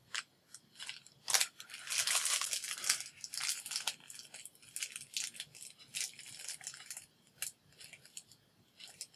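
Clear plastic packaging bag crinkling and rustling in irregular crackly bursts as hands work it open, busiest in the first few seconds and sparser toward the end.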